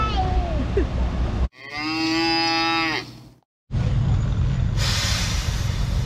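A single drawn-out cow moo, about a second and a half long and steady in pitch, rising slightly as it ends. After a brief silence comes the steady low rumble of engine machinery, with a hiss joining in near the end.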